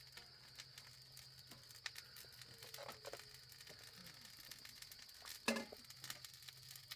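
Steady high chirring of insects at night, with scattered light clicks and knocks and one louder knock about five and a half seconds in.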